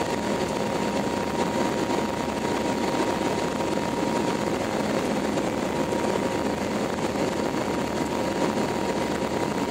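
Steady airplane cabin noise in flight: engine and rushing air in an even roar, with a steady whine running through it.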